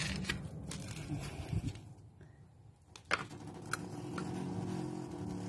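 A few metallic clicks and taps from a spanner working the brass fuel-pipe unions on a Lister SR3 diesel's injection pumps, the sharpest about three seconds in. Under them runs a steady low mechanical hum that cuts off near the end.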